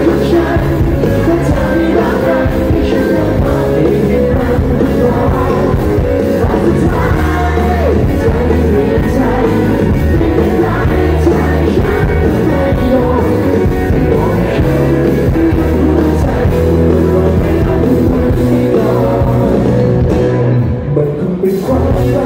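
Live rock band with electric guitars and drums backing a male lead singer, played loud through the concert PA and recorded from among the audience. The sound dips and thins briefly near the end.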